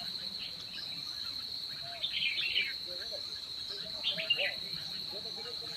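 Forest ambience: a steady high-pitched insect drone, with short bursts of bird calls about two seconds in and again about four seconds in.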